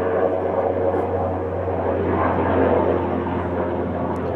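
A steady engine drone with a low, even hum, holding level with no rise or fall, like a motor running at constant speed; a faint click or two sits on top of it.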